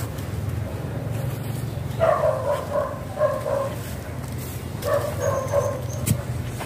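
An animal calling in two short runs of repeated, pitched calls, the first a little over a second and a half long and the second about a second, over a steady low rumble. A single sharp click comes near the end.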